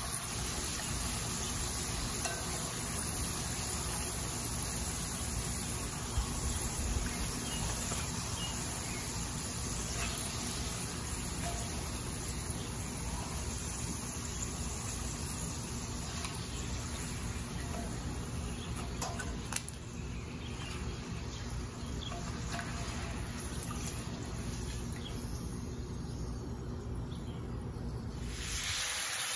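Potato slices frying in hot oil in a cast iron pot: a steady sizzle and bubbling, with a low rumble underneath and a few light clicks.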